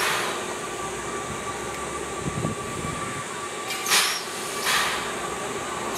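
Steam tank locomotive (Oigawa Railway's C11 227, dressed as Thomas the Tank Engine) standing with steam up: a steady hiss, broken by short sharp puffs of steam at the start, about four seconds in, and again just before five seconds.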